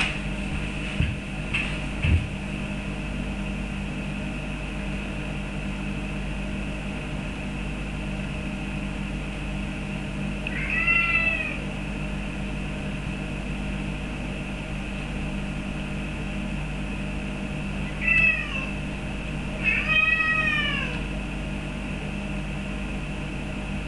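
Birman cat meowing three times: once about ten seconds in, then twice close together near the end, each call rising and falling. These are begging meows for a feather duster. A few knocks sound in the first couple of seconds, over a steady low hum.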